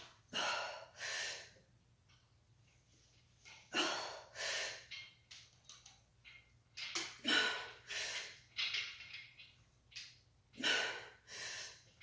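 A woman breathing hard through a heavy barbell bench press, with loud in-and-out breaths about every three seconds.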